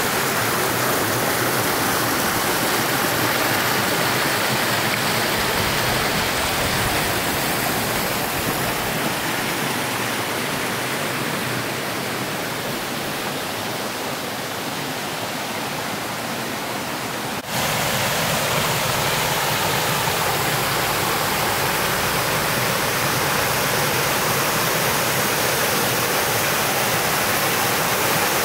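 Creek water rushing steadily over rocks in small cascades. It is a little softer for a few seconds in the middle, then cuts suddenly to a louder, fuller rush.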